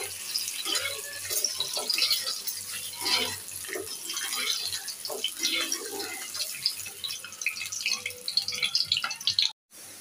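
Tap water running and splashing as something is rinsed by hand, with irregular small knocks and clinks. It cuts off suddenly near the end.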